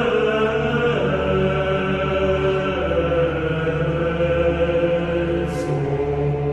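Steady, chant-like drone of many layered sustained tones, with a brief faint hiss about five and a half seconds in.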